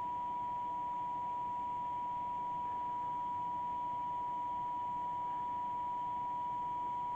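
CB radio receiver putting out a steady 1 kHz test tone over a bed of hiss, receiving a weak injected test signal of about minus 100 dBm during receive alignment.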